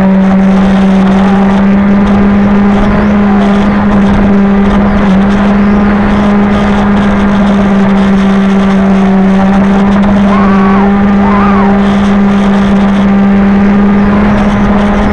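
Electric motor and propeller of a radio-controlled airplane running at a steady pitch, heard from a camera on board the plane, with air rushing over the microphone.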